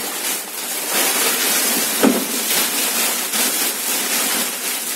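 Multilayer aluminium-foil insulation sheet crinkling and rustling loudly as it is handled and folded.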